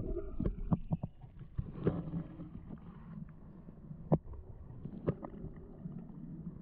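Muffled underwater sound of river current picked up by a submerged camera: a steady low rumble with little treble, broken by several sharp knocks and clicks, the loudest about four seconds in.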